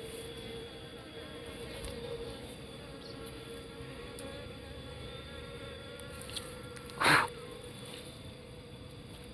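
Bees from a wild colony nesting in a tree hollow buzzing steadily as the nest is opened for its honey. About seven seconds in there is a short, loud burst of noise.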